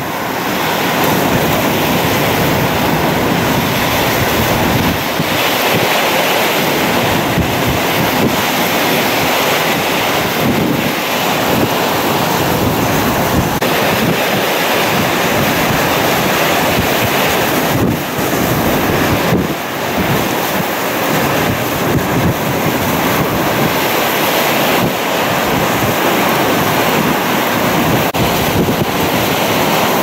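Hurricane-force wind with wind-driven rain in Hurricane Harvey's eyewall: a loud, steady rush that swells and dips with the gusts, with wind buffeting the microphone.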